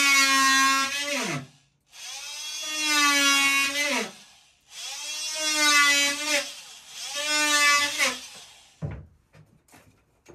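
Cordless drill boring a starter hole through calcium silicate board for a jigsaw blade. The motor runs in four bursts of steady whine, its pitch falling each time it stops, followed by a few light knocks near the end.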